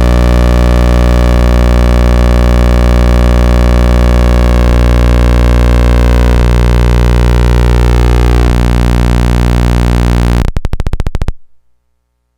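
Old, worn thyratron tube wired as a sawtooth oscillator, giving a loud, steady low buzz rich in overtones, with some upper overtones drifting in pitch. Near the end it breaks into a rapid stutter of pulses and then cuts off.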